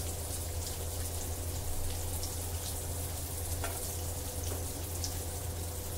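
Rava-coated kingfish steaks shallow-frying in hot oil in a pan: a steady sizzle with a few faint pops, over a steady low hum.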